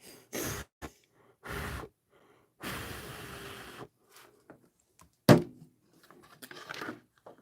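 Workbench handling noises while wiring and soldering: a few short rustles and scrapes, a longer rustle lasting about a second, then one sharp click about five seconds in followed by light clatter.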